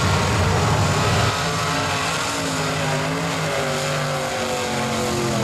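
Mud bog truck's engine running at high revs as it churns through a mud pit. The drone holds steady, its pitch stepping up and down a little every second or so.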